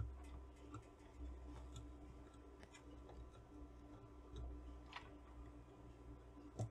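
Faint clicks and taps of multimeter probe tips touching component pins on a circuit board, over quiet room tone with a low hum.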